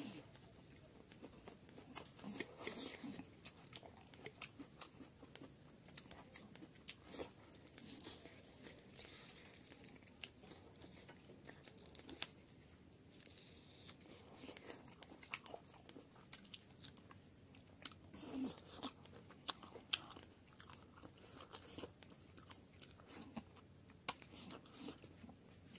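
A person eating chicken curry and rice by hand close to the microphone: chewing and biting, with many short, sharp crunches and clicks.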